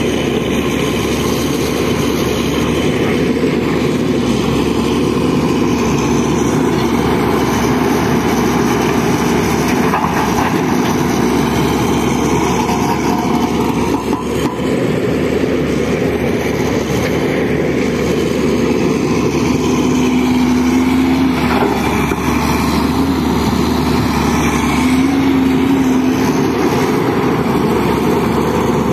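Diesel engine of heavy earthmoving machinery running steadily, with its tone swelling for a moment twice in the second half.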